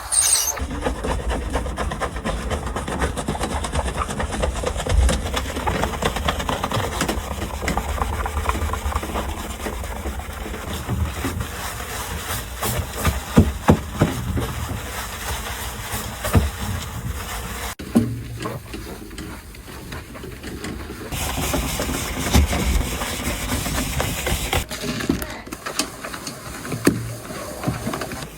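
Steady hissing with scattered knocks and clatters of containers and items being handled during fridge cleaning and restocking. The sound changes abruptly about two-thirds of the way through and again near the end.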